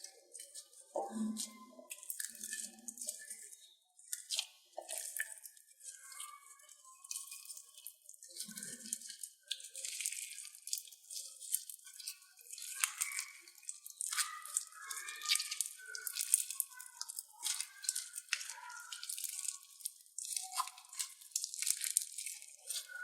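Slime being squeezed, poked and stretched by hand: a dense, irregular run of sticky crackling and popping, with a couple of brief squelches.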